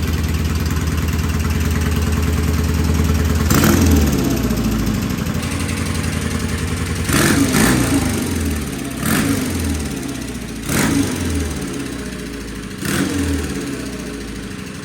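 Vintage British race motorcycle engine on its first start after repair, idling steadily and then revved in about five short throttle blips roughly every two seconds, dropping back to idle between them. The owner judges the idle and rev as good.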